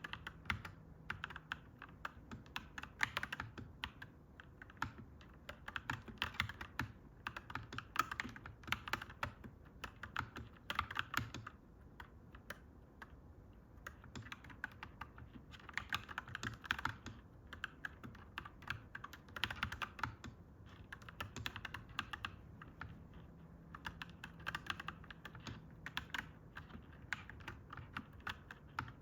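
Clacky mechanical keyboard being typed on in fast, continuous bursts of keystrokes, with a brief lull a little before halfway.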